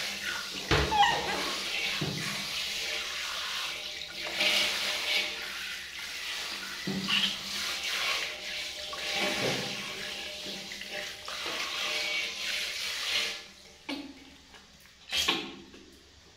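Handheld shower head spraying water over a baby monkey and into a water-filled metal basin, a steady hiss of running and splashing water. The spray stops about three-quarters of the way through, and a single short knock follows.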